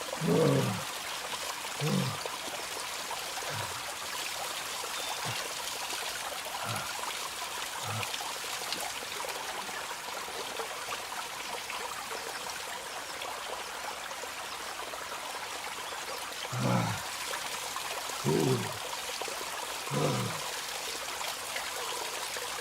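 Small waterfall splashing and trickling steadily, with a few short low thumps, the loudest ones near the start and in a cluster about three-quarters of the way through.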